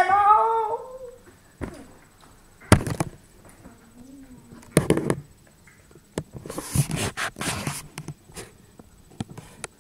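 A voice trailing off, then a few short knocks, the sharpest about three seconds in, and a stretch of rustling, breathy noise around seven seconds in.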